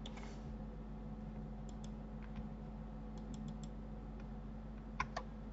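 Scattered clicks of a computer mouse and keyboard: a few faint ones in the middle and two sharper ones close together near the end, over a steady low hum.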